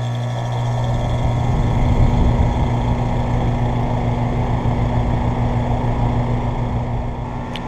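A 2015 Trane XR14 central air conditioner's outdoor unit running just after start-up. The scroll compressor gives a steady low hum and the condenser fan a rush of air, which builds over the first couple of seconds and then holds steady. There is one short click near the end.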